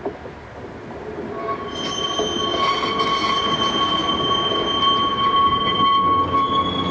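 Vintage tram and its trailer cars rolling past on a curved track with the wheels squealing: a steady high squeal starts about a second in and a second, higher squeal joins it soon after, over the rumble of the running gear, growing louder as the cars come close.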